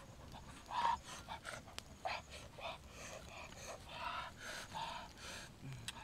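Pestle pounding and mashing wet chili and tomato in a mortar: a run of short squelching strokes, about two to three a second, the loudest about a second in.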